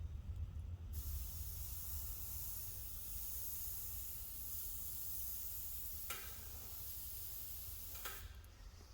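Air-powered paint sprayer hissing steadily as it sprays paint. The hiss starts about a second in and cuts off shortly before the end, with a short click a little after 6 s and another just before it stops.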